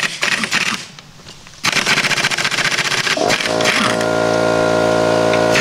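Air impact wrench hammering at a wheel's lug nuts in two bursts, loosening them, with a short pause about a second in. About three seconds in, a small air compressor starts and runs steadily under it.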